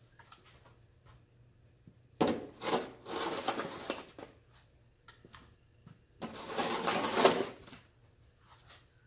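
Snow shovel scraping and pushing through snow in two strokes, each about two seconds long, with quieter pauses between.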